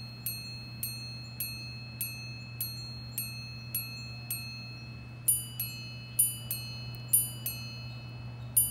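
Patek Philippe 5216P minute repeater chiming the time, with small hammers striking tuned gongs. Evenly spaced single hour strikes, a little under two a second, run up to about four and a half seconds. After a pause come three louder paired strikes, the quarters, and then the minute strikes begin near the end.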